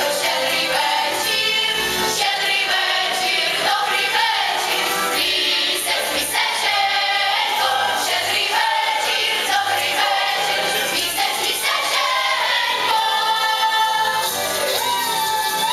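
Children's choir singing a Ukrainian Christmas carol (koliadka) together, with musical accompaniment.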